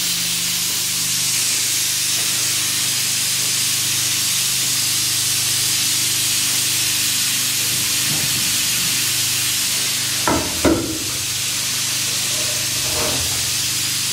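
Steady hiss of a camping gas stove burning under a glass pot, with a couple of short knocks about ten seconds in.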